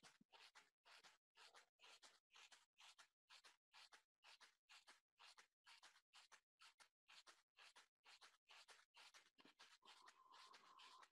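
Near silence: faint hiss from an open microphone, chopped into short bursts about three times a second. A faint steady tone comes in near the end.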